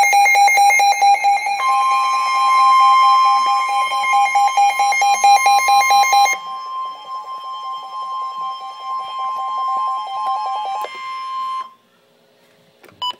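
Emergency alert tones for a weather warning. A fast, buzzy electronic beeping is joined about a second and a half in by a steady high single tone, the weather-radio warning alarm tone. The beeping drops in level about halfway through and stops a little before the steady tone cuts off near the end, leaving a brief silence.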